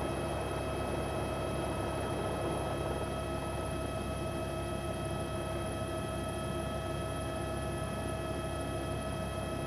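Helicopter engine and rotor noise heard from on board: a steady drone with several high steady tones over a low hum.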